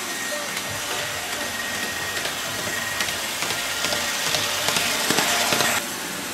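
Model old-style electric locomotive running along the layout track close by: a steady rolling hiss with a faint high motor whine at first, then rattling clicks growing louder as it passes, cutting off suddenly near the end.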